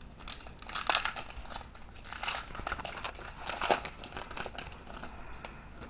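Wrapper of a 2007 Topps Allen and Ginter baseball card pack crinkling and crackling in irregular bursts as it is handled and opened.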